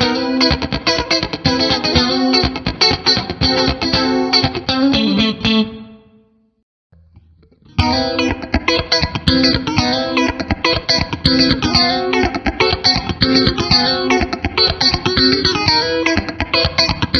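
1997 Fender Stratocaster with single-coil pickups played through a NUX MG-30 modeler's Roland JC-120 clean amp simulation, with a modulation effect on: funky rhythm chord strumming. It dies away about six seconds in and starts again about two seconds later.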